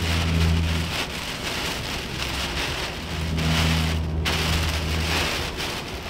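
Heavy thunderstorm rain and strong wind beating on a pickup truck, heard from inside the cab as it drives. A low drone joins in during the first second and again from about three to five seconds in.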